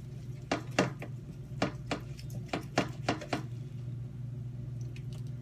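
Kitchenware knocking and clattering: about nine sharp knocks in quick succession over the first three and a half seconds, over a steady low hum.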